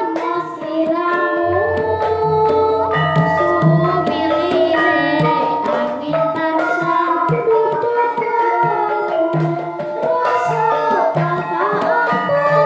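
Live Javanese gamelan music: a girl sings a slow melody into a microphone over the ensemble, with regular kendang drum strokes keeping the beat. A deep low tone hums under the music for about four seconds near the start.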